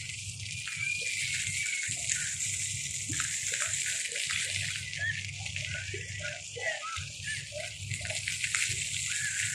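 Steady rushing and splashing of water, with faint voices underneath.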